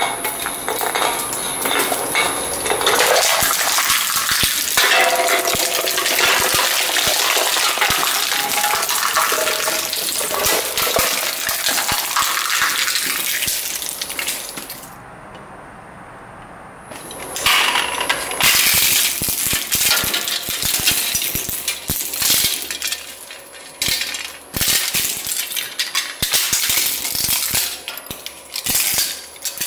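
Twin-shaft shredder's hooked steel cutters tearing up an aluminium soda can, a long dense metallic crunching and scraping. After a short lull, a run of sharp cracks and snaps as a hard plastic toy is broken up in the cutters.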